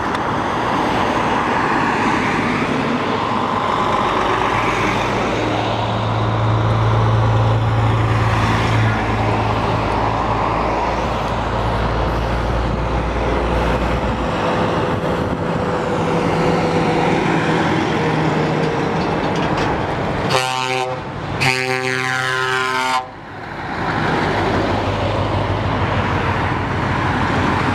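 A column of heavy trucks driving past on a highway, diesel engines and tyres running steadily. About two-thirds of the way through, a truck horn blasts twice, one short and one longer.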